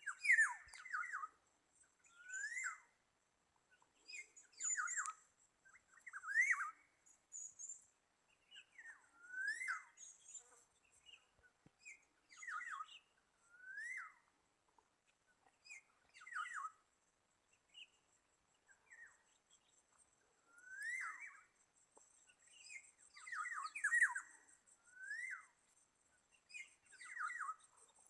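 Black-naped orioles calling: short slurred notes that sweep up and fall back, repeated every second or two, with a steady high insect trill behind.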